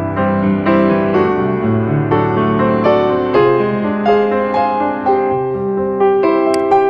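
Background piano music: a gentle melody of struck notes, a new note or chord about every half second.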